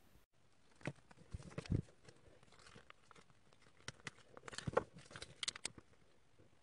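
Small plastic Transformers figure being twisted from car mode into robot mode by hand: faint scattered clicks and knocks of its plastic parts, thickest between about four and six seconds in.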